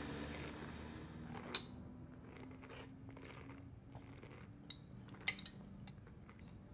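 A fork clinking and scraping against a plate during a meal: two sharp clinks, about one and a half seconds in and again after five seconds, with fainter taps between them, over a faint steady low hum.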